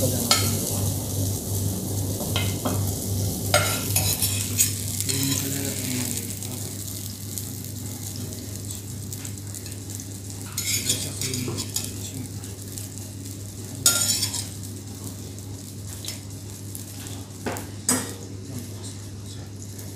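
Fish pieces sizzling in oil in a frying pan, with a metal spatula scraping and clinking against the pan and plate as they are lifted out. The sizzle eases after about six seconds, and a few sharp clinks stand out later on.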